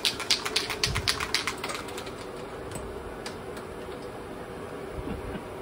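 A Liquitex spray-paint can being shaken, its mixing ball rattling in quick clicks for about the first two seconds. A steady hum continues after the rattling stops.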